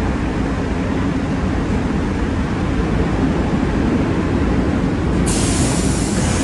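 A New York City Subway R62A train running with a steady, loud rumble. About five seconds in, a sharp high hiss starts suddenly on top of the rumble.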